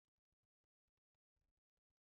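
Near silence: the audio is practically digital silence.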